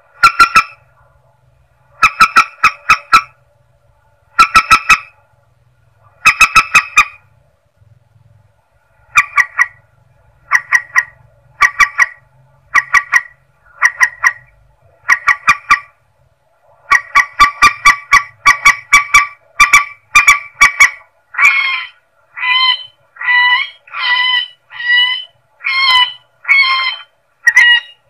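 Recorded calls of the mandar sawah, a rail, played as a hunting lure: loud, harsh honking notes. They come first in quick clusters of three to five, then singly about once a second, and near the end as longer drawn-out notes about once a second.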